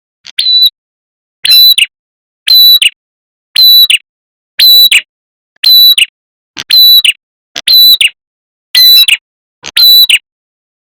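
Lure-call recording of a prenjak kepala merah: a short, bright chirping call with a falling end, repeated about once a second with silence between the calls, about ten times.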